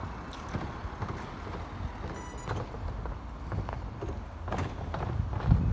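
Footsteps on pavement with rumble and handling noise on a hand-held phone's microphone, the steps coming as irregular knocks about once or twice a second. A brief faint high-pitched chirp about two seconds in.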